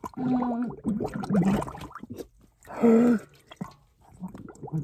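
A person retching and spitting liquid into a metal bowl, several times in a row: short strained throat sounds, each with liquid splashing into the bowl.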